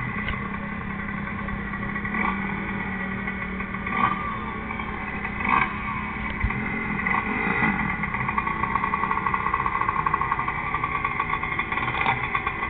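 Dirt bike engine running as the bike rides, its revs rising and falling, played back from a helmet-camera recording through a TV's speaker.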